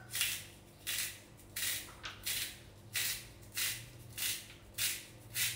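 A carrot being twisted through a handheld spiralizer, its blade shaving the carrot into thin noodles: a short scrape with each turn, repeating evenly about three times every two seconds.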